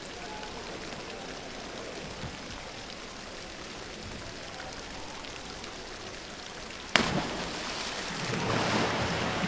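Steady hiss of a diving hall's ambience, then about seven seconds in a single sharp splash as a diver enters the pool from the 10 m platform, followed by a swelling wash of crowd applause.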